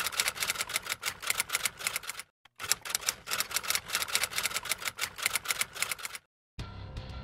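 Typewriter sound effect of rapid key clacks in two runs, with a short break a little over two seconds in, stopping about six seconds in. Background music starts near the end.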